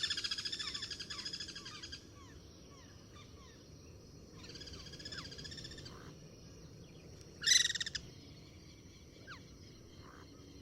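Guira cuckoos calling back and forth: a loud, rapid series of harsh notes fading away over the first two seconds, a quieter answering series near the middle, and a short loud burst a little later. Faint short falling whistles sound in between.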